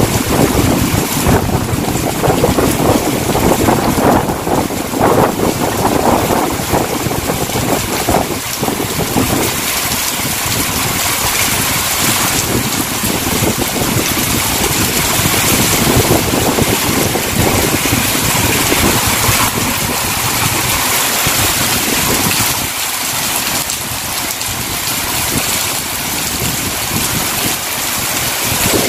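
Heavy tropical downpour with strong wind: a steady, loud hiss of rain pouring onto the pavement, road and parked cars. Gusts buffet the microphone in the first several seconds.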